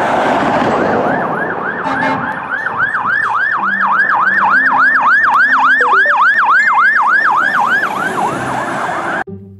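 Fire truck's electronic siren in a fast yelp, rising and falling about three to four times a second, after a loud rushing noise in the first couple of seconds. It cuts off suddenly near the end.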